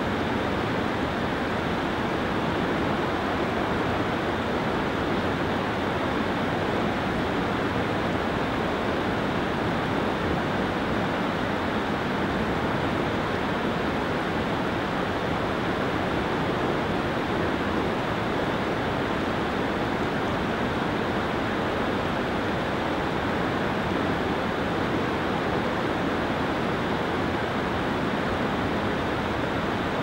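Large waterfall in heavy flow pouring: a steady, dense rush of water.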